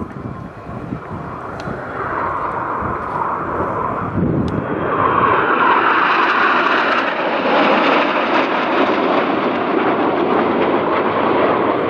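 Jet noise from a formation of Northrop F-5E Tiger II fighters with twin turbojets, passing overhead. It builds steadily and grows clearly louder about four seconds in, then holds loud.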